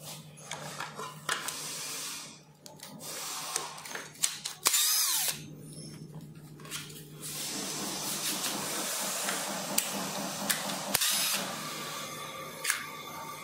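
Electric screwdriver backing screws out of the side of an electric scooter's deck. It runs in several spells broken by short pauses, with a brief rising whine about five seconds in and a few sharp clicks.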